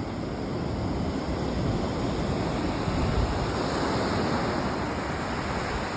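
Ocean surf breaking and washing up on a sandy beach, a steady rush that swells a little around the middle.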